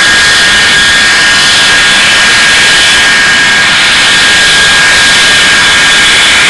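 English Electric Lightning F6's twin Rolls-Royce Avon turbojets running loud and steady, with a high whine over the jet noise.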